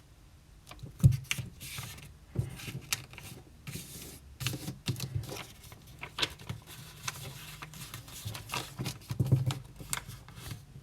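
Sheet of printer paper being folded and creased by hand: irregular rustling and crinkling with short clicks, and a few soft knocks, the loudest about a second in.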